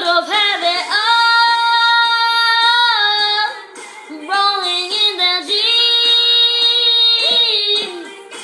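A young girl singing a pop chorus solo, with two long held notes, one starting about a second in and one about five seconds in, and shorter sung notes between them.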